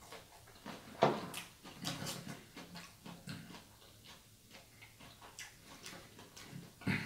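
Close-miked chewing of food, with wet mouth clicks and smacks throughout and a sharper click about a second in.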